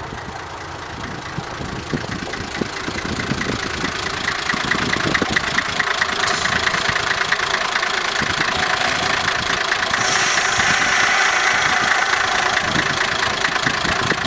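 Diesel engine of a KiHa 10 railbus running with a fast, even clatter, growing steadily louder, with a high hiss joining about two-thirds of the way through.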